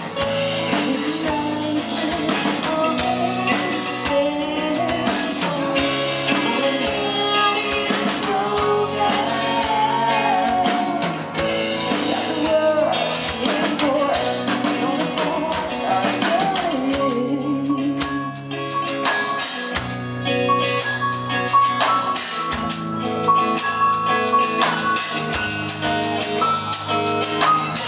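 Live rock band playing an instrumental passage with drum kit and guitar, with gliding lead notes over a steady beat, before the vocals come in.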